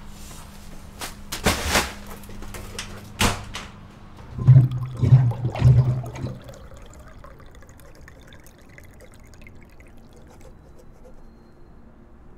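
A few sharp knocks in the first few seconds, then a water-cooler bottle glugging about three times as air bubbles up through the water while it is drawn off, dying away to a faint wash of water.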